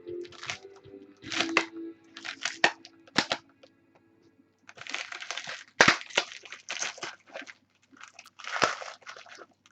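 Crinkly packaging being handled and torn open in a string of short, irregular rustles and crackles, with a few sharp snaps.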